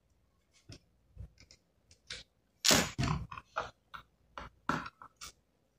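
Hands handling and tapping the plastic bottom case of an Asus laptop: a string of short clicks, taps and scrapes, with the loudest cluster about three seconds in.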